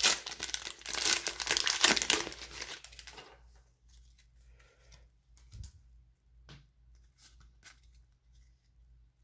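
Foil wrapper of a Pokémon trading-card booster pack being torn open and crinkled for about three seconds, followed by a few faint taps as the cards are handled.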